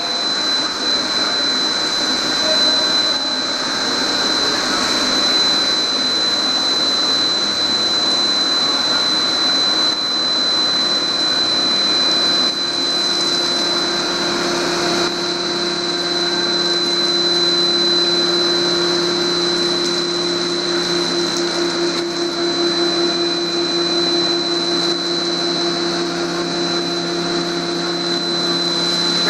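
Fermat WRF 130 CNC horizontal boring mill rigid-tapping an M36x4 thread with through-spindle coolant: a loud, steady machine noise and coolant spray hiss, with a constant high whine. About halfway through, a lower steady hum joins in.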